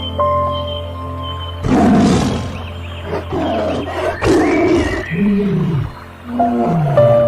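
A large wild animal calling in several rough, loud bursts from about two seconds in, over steady background music. Near the end a lower call rises and falls.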